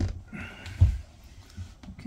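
Hand-pumped hydraulic crimping tool being worked to crimp a lug onto a heavy battery cable. There are several thumps from the tool, the loudest a little under a second in, with a brief hissing squeak just before it.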